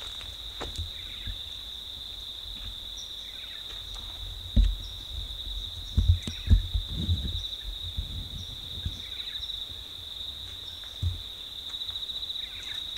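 Insects in the bush giving a steady, high-pitched, shimmering trill, with a few low thumps and a faint rumble over it.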